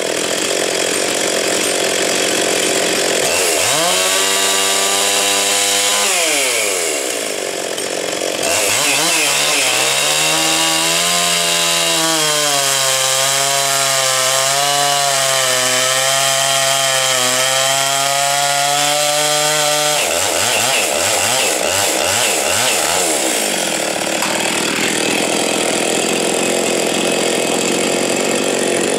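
Husqvarna 257 two-stroke chainsaw held at full throttle and cutting through a log. Its engine note drops and wavers under load during a short cut about four seconds in and a long cut from about nine to twenty seconds in, then climbs back to high revs between and after the cuts.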